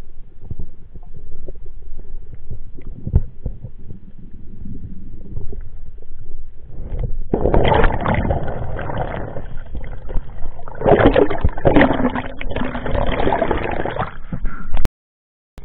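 Water noise on an underwater action camera's housing: a muffled low rumble with scattered knocks for about seven seconds, then much louder sloshing and splashing as the camera rises and breaks the surface. It cuts off suddenly shortly before the end.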